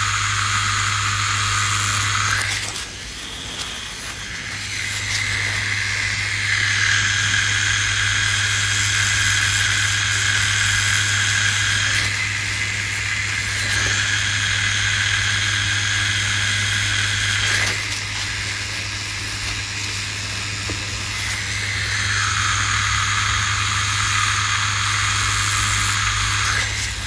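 Cartridge tattoo machine with a 5RL needle running at 7.5 volts, a steady buzz while whip shading. It stops for about two seconds around three seconds in, then starts again, and goes a little quieter for a few seconds past the middle.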